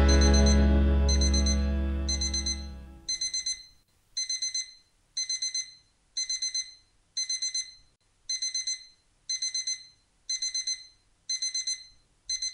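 The last low chord of the music dies away over the first three seconds. Then an electronic alarm-clock beep repeats: a quick run of high beeps about once a second, over and over, like a digital alarm clock going off.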